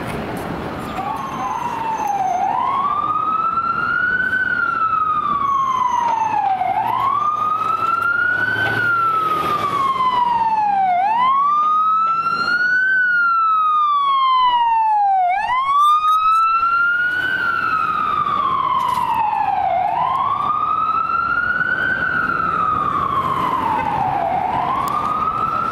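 FDNY EMS ambulance siren on a slow wail, its pitch rising and falling about every four and a half seconds, over street traffic.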